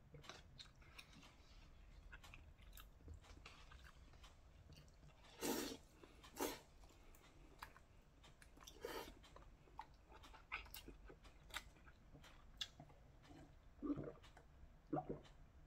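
A person eating instant udon noodles with wooden chopsticks: faint chewing with small clicks throughout, two loud slurps of noodles about five and a half and six and a half seconds in, another near nine seconds, and short sips of broth from the paper cup near the end.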